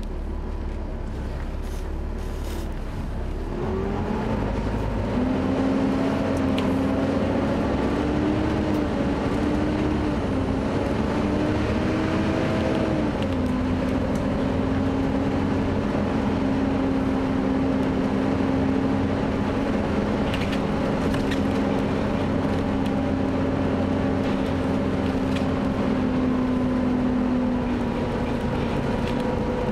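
Volvo B7TL double-decker bus pulling away about four seconds in and accelerating, its diesel engine under load. A loud cooling fan whines over the engine, its pitch stepping at first and then holding steady.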